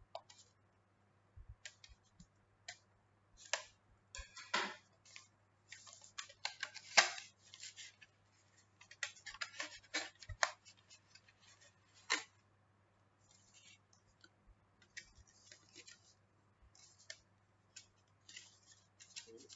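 Sealed cardboard SSD retail box being opened and handled, with its plastic inner tray: irregular scrapes, scratches and clicks, busiest in the first half and thinning to a few light ticks near the end.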